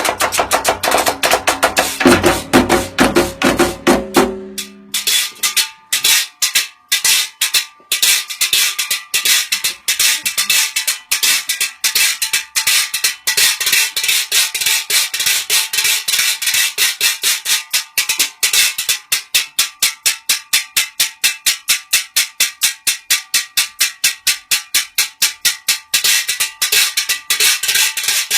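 Percussion-heavy music. About four seconds in the bass and pitched parts drop out, leaving a fast, even run of sharp, clicky percussion hits.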